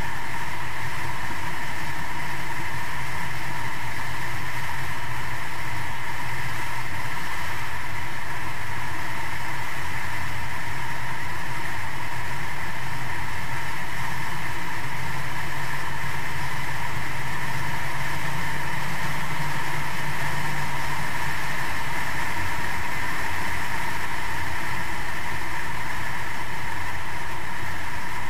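150 hp Evinrude outboard motor running steadily at high speed, its pitch holding constant throughout.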